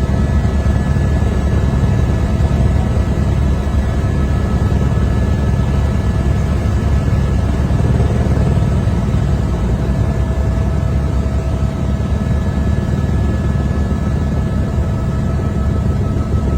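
Helicopter in flight: steady, loud rotor and engine noise with a fast even beat down low and a few thin, steady whines above it.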